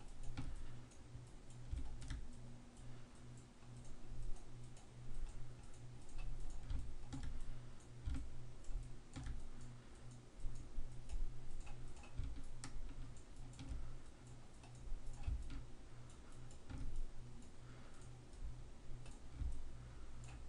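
Scattered computer mouse clicks, irregular and faint, from clicking and dragging a hair-comb brush, over a steady low hum.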